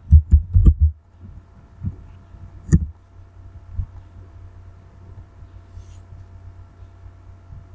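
Computer keyboard typing: about five quick, thudding keystrokes in the first second, then a single sharper key press a little under 3 s in as the search is entered, followed by a faint steady low hum.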